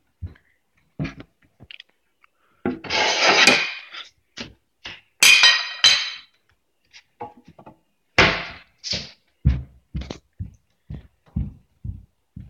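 Handling clatter as a plate and pizza are moved about on a stone kitchen counter: short knocks and two louder bursts of scraping and rubbing in the first half. Then a regular run of footsteps, about two a second.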